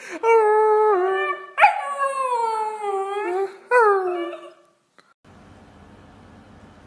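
Husky puppy howling: three drawn-out, wavering howls, each sliding down in pitch, the middle one the longest. The howling stops abruptly after about four and a half seconds, leaving only a faint low hum.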